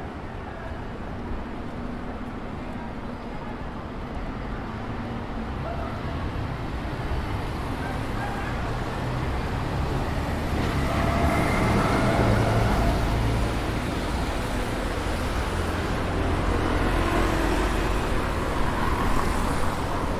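City street traffic: cars and double-decker buses passing with a low engine rumble, growing louder from about halfway through.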